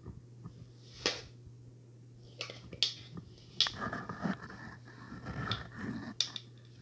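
Handling noise from a helmet being turned over in the hands: scattered sharp clicks and taps with some rubbing and rustling about halfway through, over a steady low hum.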